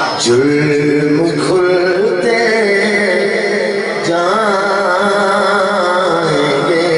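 A man's voice chanting Urdu devotional verse in long, wavering held notes into a microphone.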